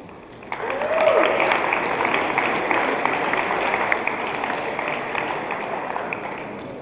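Audience applauding, breaking out about half a second in and slowly dying away, with a brief shout from one person near the start.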